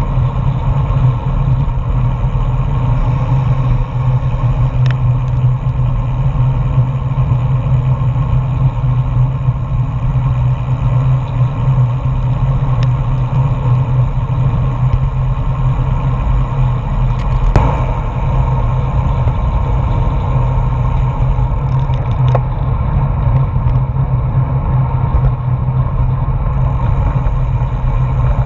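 Steady wind rush and road noise on a bike-mounted GoPro's microphone while riding a road bike on asphalt, with a single sharp click about two-thirds of the way through.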